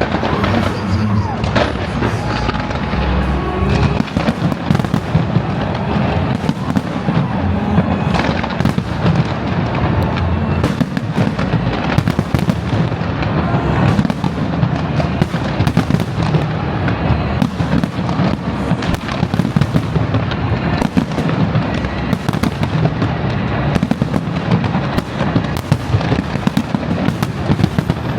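Fireworks display: a continuous barrage of bangs and crackling from aerial shells, with no pause.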